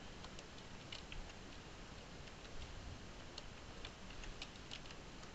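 Faint, irregular clicks of computer keyboard keys being typed.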